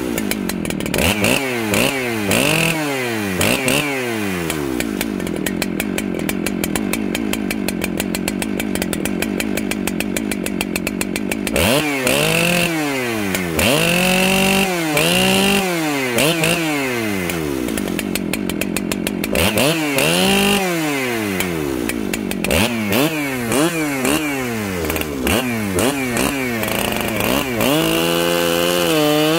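Husqvarna 394 two-stroke chainsaw cutting through a large log. The engine revs up and drops back again and again, with two long stretches of steady, lower running while the chain is pulling in the cut. Near the end it holds at a high steady pitch.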